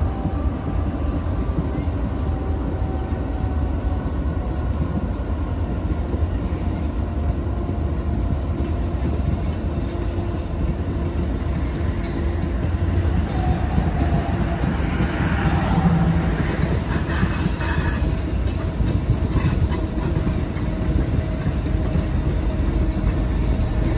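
Loaded coal hopper cars of a freight train rolling past on the rails: a steady rumble of wheels on track, with some wheel squeal partway through.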